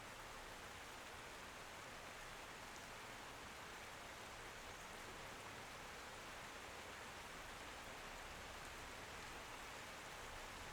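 Steady rain falling, a faint even hiss with no distinct drops standing out.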